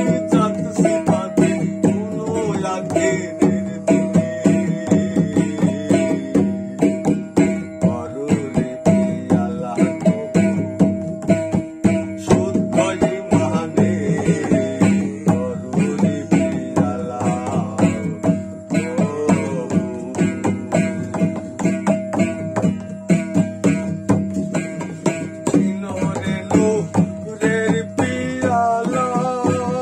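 Baul folk song: a one-string ektara plucked over and over in a steady rhythm over a held drone, with a man's singing voice coming and going over it.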